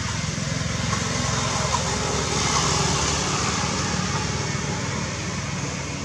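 A small engine running steadily with a fast low pulsing, growing louder about two seconds in and then slowly fading.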